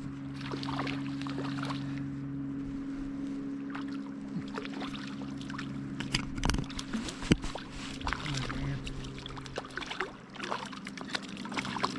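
Creek water running, with a steady low hum and a few short, sharp sounds about six to seven seconds in.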